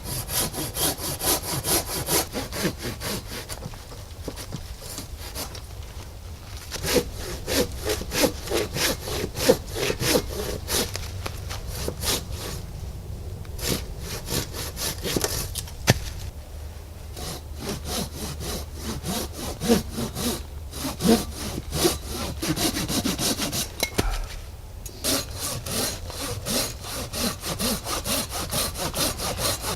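A hand saw cutting through wood in runs of quick back-and-forth strokes, with a few short pauses between runs.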